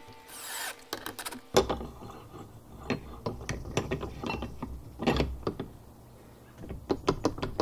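A cordless drill runs briefly, then a steel cane bolt on a wooden gate clicks and clanks as its rod slides and rattles in its brackets. There is one louder knock about five seconds in and a quick run of clicks near the end.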